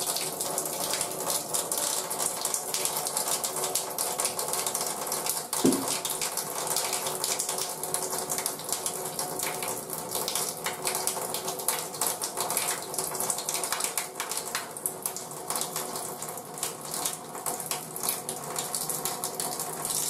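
Tap water running steadily and splashing into a plastic dog-bathing tub during a dog's bath. A short, sharp sound stands out about six seconds in.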